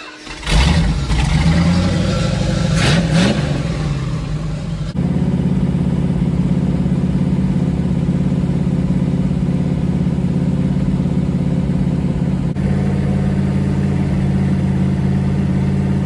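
Freshly built Mopar 440 big-block V8 on an engine run stand, started by its ignition key about half a second in. It runs rough and loud with a quick rise and fall in revs around two to three seconds, then settles into steady running from about five seconds, during its break-in run.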